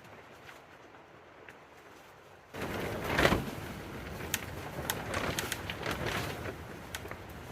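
A strong wind gust hits suddenly about two and a half seconds in and keeps blowing, with the high tunnel's plastic covering rattling and snapping sharply again and again.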